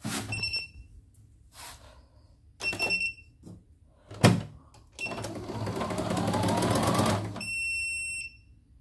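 CNY E960 computerised embroidery machine: short button-press beeps and a few clicks. Then its motor runs for about two seconds with a rising whine and stops. A long warning beep follows, the machine's alert that the upper thread is broken.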